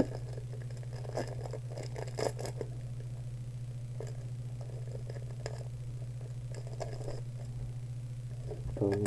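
Trading cards handled on a playmat: scattered short scrapes and rustles as cards are slid and sorted, over a steady low hum. Music with a plucked guitar comes in near the end.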